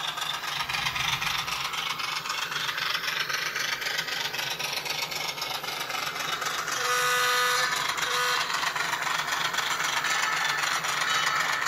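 Recorded diesel switcher engine sound from a LokSound V5 Nano decoder, played through a tiny sugar-cube speaker in an N scale Baldwin VO-1000 running along the track, mixed with the clatter of the model's wheels and drive. About seven seconds in, the decoder's horn sounds one long blast, then a short one.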